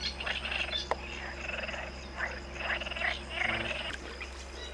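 A chorus of frogs croaking at night, calls repeating about every half second.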